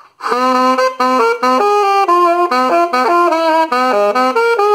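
Saxophone playing a quick melodic phrase of short, separated notes, the passage just sung in solfège as "la sol, la fa, mi, re, la re, la re, do...".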